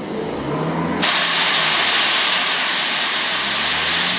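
Narrow-gauge steam locomotive's safety valves lifting: a loud, steady hiss of steam blowing off that starts suddenly about a second in. The fire has been built up too much, so boiler pressure is being released.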